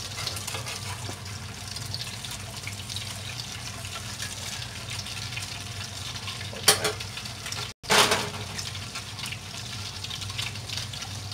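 French toast frying in butter in a cast iron pan: a steady, crackling sizzle. Two sharp knocks about seven and eight seconds in, as of a spatula against the pan during the flip.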